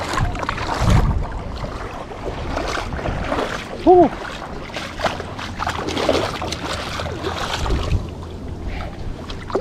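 Wind buffeting the microphone over the wash of sea surf, with scattered small clicks. A brief pitched squeak about four seconds in is the loudest sound.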